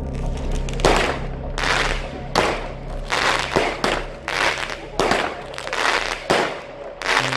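Weco Sky Artist 19-shot firework battery firing: a quick string of about a dozen shots, one every half second or so, each a sharp bang that dies away quickly.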